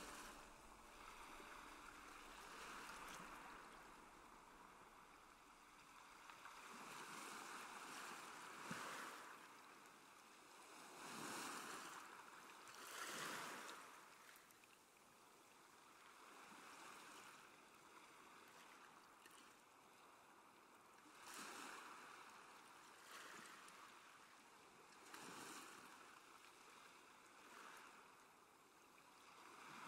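Faint sea waves washing, a soft rush of water that swells and falls away every few seconds.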